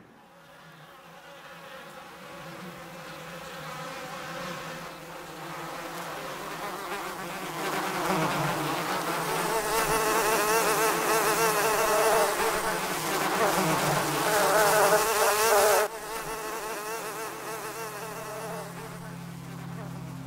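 Buzzing of flying insects, with a wavering pitch like flies or bees in flight. It grows louder for about fifteen seconds, drops off abruptly, then goes on more quietly.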